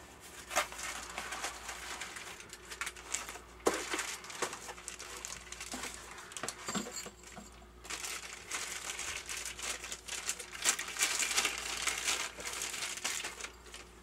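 Packaging being unwrapped by hand: crinkling and rustling in irregular bursts, with a few sharper clicks and knocks.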